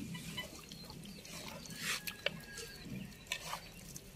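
Hand squelching through ribbon fish pieces in a wet masala marinade, the mixing giving irregular soft squelches with a few sharper clicks.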